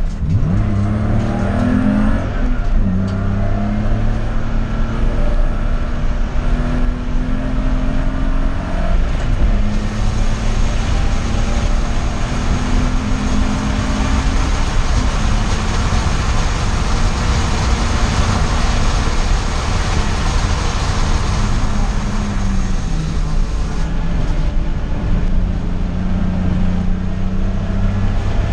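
Race car engine running hard on a circuit, its pitch holding under load, dropping sharply about three seconds in and again around the middle, then climbing back, over loud wind and road noise.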